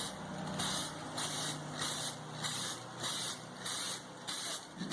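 Aerosol can of high-temperature spray paint hissing in short bursts, about two a second, as paint is sprayed onto the generator's removed muffler.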